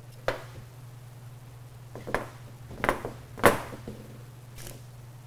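About five sharp taps and clatters, the loudest about three and a half seconds in, from a plastic candy mold and utensils being handled on a stainless steel worktop, over a steady low hum.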